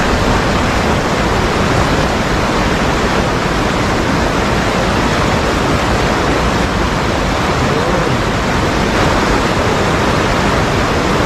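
Water rushing over a low dam's weir and churning around boulders: a loud, steady rush.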